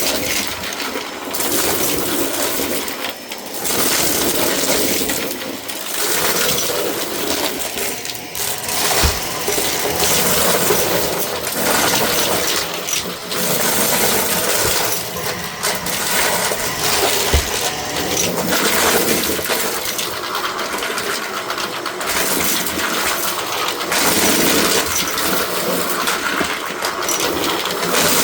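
White Shark vacuum cleaner running on a rug, with many small bits of debris clattering as they are sucked up, the level rising and falling as it is pushed back and forth.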